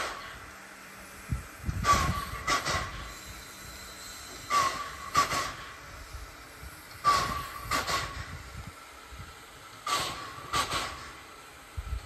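Small tank steam locomotive working slowly, its exhaust chuffing in pairs, about one pair every two and a half seconds, each chuff a sharp hissing blast from the chimney.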